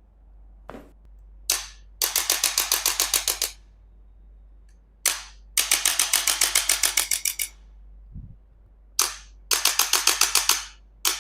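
Chiropractic adjusting instrument firing. Each time, a single sharp click is followed by a rapid train of about nine clicks a second lasting one to one and a half seconds, and this happens three times, with one more single click near the end.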